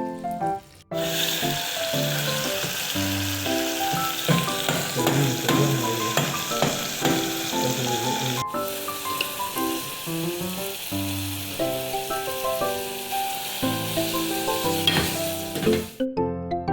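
Food sizzling as it fries in a hot pan, starting about a second in, with a brief break about halfway and stopping just before the end. Gentle background piano music plays throughout.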